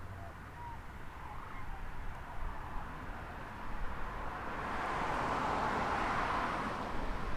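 A road vehicle driving past, its tyre and road noise swelling to a peak about two thirds of the way in and then fading.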